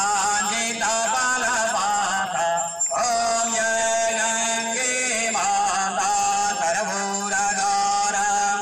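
Male voices singing a Hindu devotional chant with music, an aarti hymn, in one continuous sung line with a short break about three seconds in.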